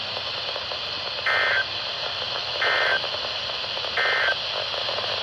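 Emergency Alert System end-of-message signal: three short bursts of buzzy two-tone SAME data, about a second and a half apart, over steady radio hiss, marking the close of the warning.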